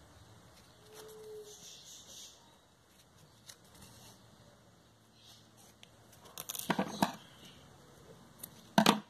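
Quiet rustling of ribbon and thread as a hand-sewn bow is tied off, with a few sharp clicks about two-thirds of the way in. Near the end a pair of scissors snips the thread, the loudest sound.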